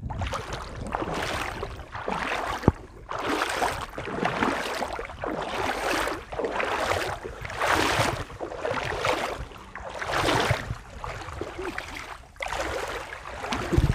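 Bare feet wading through shallow water, a splashing swish with each step, about one a second.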